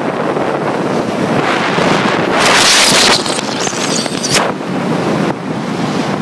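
Wind buffeting a phone's microphone held out of a moving car's window, a loud steady rush of air and road noise. It swells louder for about a second, a little over two seconds in.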